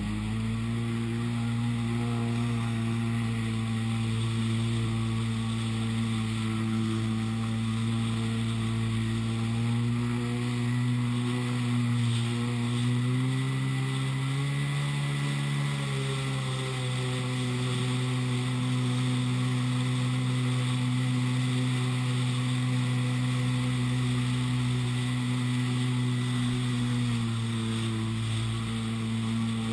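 Yamaha WaveBlaster 701 jetski's two-stroke twin engine running hard under way, its pitch steady, rising briefly about halfway through before settling back, and easing a little near the end.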